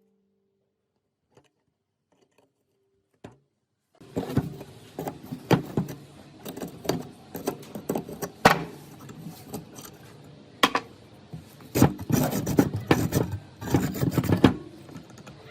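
Hand work on rusty circular saw parts: irregular scraping and rubbing strokes with a few sharp clicks and knocks. It starts about four seconds in, after near silence.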